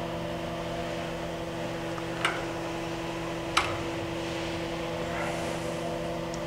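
Jones & Shipman 1307 universal cylindrical grinder running under hydraulic power, with a steady hum as the table traverses. Two sharp clicks come just over a second apart.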